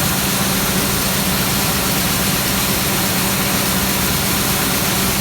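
Heavy farm diesel engine running steadily, a constant hum under an even wash of noise.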